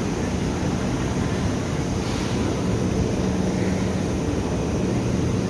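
Steady rumble of a train carriage running, with a low, even hum underneath.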